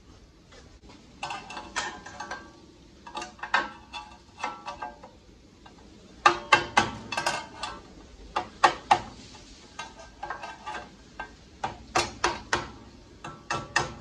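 Series of sharp metal-on-metal taps in quick clusters, each ringing briefly: a hammer and screwdriver bending a steel locking tab over a bolt head on a disc-brake bracket so the bolt can't work loose.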